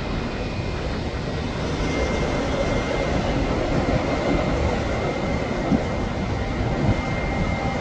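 Boeing 777-300's twin jet engines on the takeoff roll: a steady rumble that slowly grows louder, with a thin high whine coming in about two seconds in.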